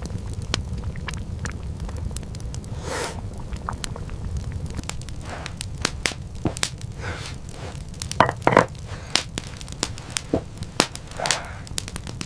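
Fire crackling, with scattered sharp snaps and pops over a steady low rumble, and a few louder knocks about eight seconds in.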